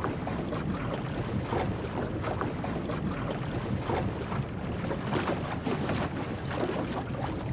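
Wind buffeting the microphone over water rushing and splashing along the hull of a Goat Island Skiff sailing under way, with frequent short, irregular splashes.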